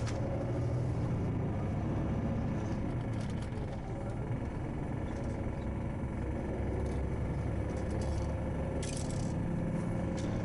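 Steady low rumble of a moving vehicle with a faint steady hum, and a few faint clicks.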